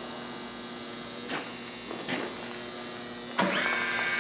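Steady electrical hum from the surface grinder, with a couple of faint clicks. About three-quarters of the way in, the K.O. Lee surface grinder's spindle motor switches on with a click and spins up into a steady whine.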